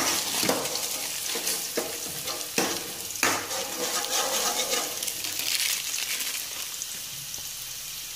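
Steady sizzling hiss of cooking on the stove, with a few sharp crinkles and taps in the first few seconds as dry instant noodles are tipped from their plastic packet into a steel pot of hot water. The hiss eases after about seven seconds.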